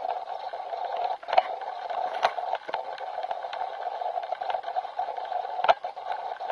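Steady rush of wind and choppy water heard from a small boat, with a few sharp knocks, the loudest about a second and a half in and near the end.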